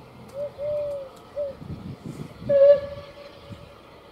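A dove cooing a three-note phrase, short, long, short. About two and a half seconds in, a louder single held note lasts about a second, with a low rumble just before it.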